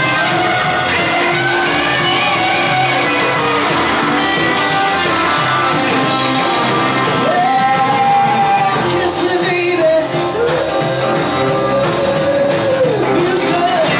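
Live rock and roll band playing, with a singer holding long notes: one about seven seconds in and a longer one near the end, over steady drum hits.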